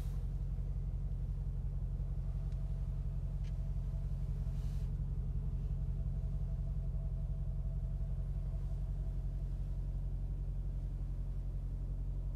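Mercedes-AMG G 63's 4.0-litre twin-turbo V8 idling in park, heard from inside the cabin as a steady low rumble.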